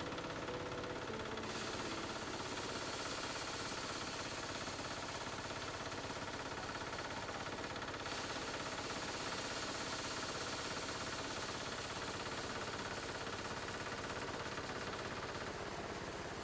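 A small engine running steadily, with a hiss above it that grows stronger about a second and a half in and again around eight seconds in.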